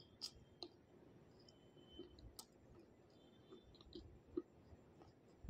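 Faint, scattered wet mouth clicks and smacks from chewing water-soaked slate stone, softened to a paste.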